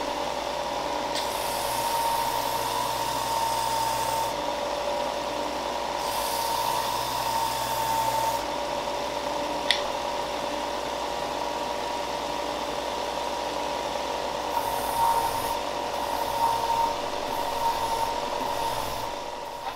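Benchtop belt sander running with a steady motor hum, while pieces of wood are pressed against the moving belt in three stretches, adding a rasping sanding hiss. There are a couple of sharp clicks, and the sound fades out at the end.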